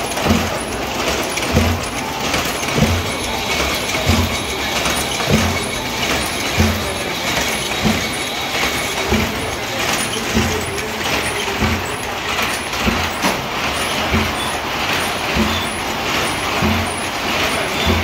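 Motorised sedge-mat weaving loom running, a heavy knock at each weaving cycle about every second and a quarter over a steady mechanical clatter. A faint steady whine sounds for a few seconds in the first half.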